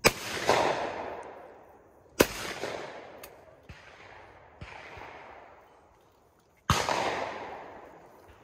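Shotgun shots at clay targets: three loud reports, two seconds and then four and a half seconds apart, each echoing off the surrounding woods and dying away over a second or so. A few fainter sharp cracks fall between them.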